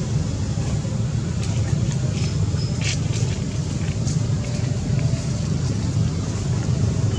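Steady low rumble of background noise, with a few faint short high chirps and clicks about one to three seconds in.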